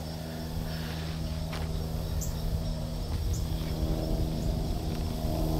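A steady, low, pitched engine hum, like distant machinery, with faint high ticks about once a second and a single sharp click a little over a second in.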